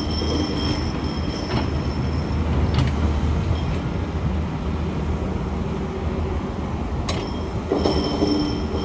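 Heavy SANY SY500H excavator working in rock: a steady deep engine rumble with high metallic squeals coming and going and a few sharp knocks of steel on stone.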